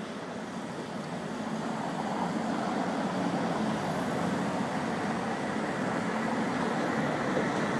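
Street traffic on a cobbled road: cars driving past with tyre and engine noise, growing louder about two seconds in and staying steady.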